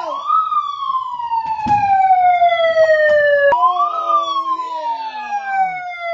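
A wailing siren, used as a wake-up alarm: a single tone that rises quickly, then glides slowly down for about three seconds, snaps back up about three and a half seconds in, and glides down again.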